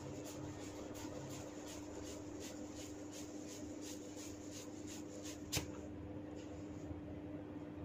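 Hair-cracking massage: tufts of hair tugged in quick succession, giving a run of small, sharp cracking snaps at about three a second, with one louder, sharper crack about five and a half seconds in and a few faint ones after it.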